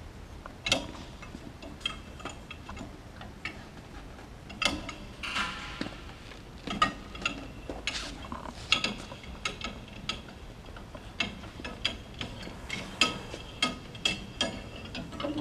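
Hand tools and metal engine parts clinking and clanking at irregular intervals during the engine teardown, some strikes ringing briefly like struck metal.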